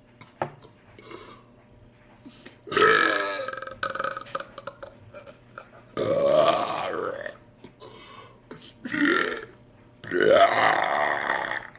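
A man belching four times: big gaseous burps of about a second each, the third shorter, with quiet pauses between.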